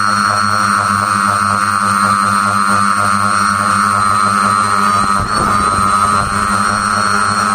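Tricopter's electric motors and propellers running steadily in a low hover, a loud even whine and drone. A brief rush of noise comes about five seconds in.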